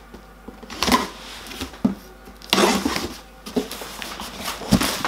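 Box cutter slitting the packing tape on a cardboard box, then the box being handled and its flaps opened. Two noisy bursts of tearing and rustling come about a second in and again halfway through, with a few sharp clicks and a dull knock near the end.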